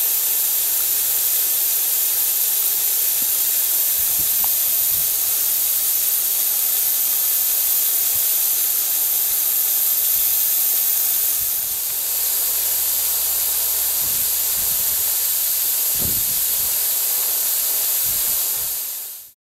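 Model twin-cylinder pumping engine running, its exhaust a steady, high-pitched hiss.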